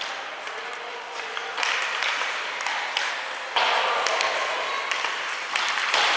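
Ice hockey arena sound: a crowd of spectators calling and shouting, swelling louder twice, with scattered sharp clacks of sticks and puck on the ice.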